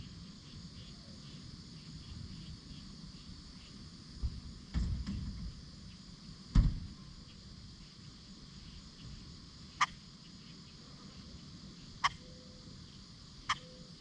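Steady outdoor insect chorus, high and faintly pulsing, broken by a few low thumps between about four and six and a half seconds in, the loudest near the middle, and three short sharp clicks in the last few seconds.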